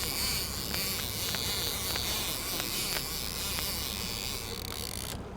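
Fishing boat's engine running steadily while trolling: a low hum under a high, buzzing whine, with a few faint ticks. The high hiss drops away near the end.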